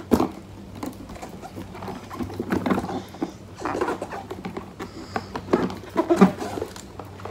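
Cardboard flashcard box being handled and pried open by hand, its lid stuck: irregular scraping, rustling and small taps of fingers on cardboard.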